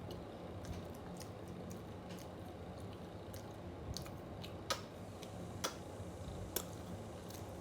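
A person eating and chewing, with scattered small clicks and three sharper clicks in the second half, over a steady low hum.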